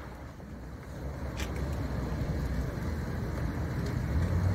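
Steady low rumble of a tractor burning fiercely, with one faint pop about a second and a half in. Near the end a low vehicle engine hum comes in and grows louder.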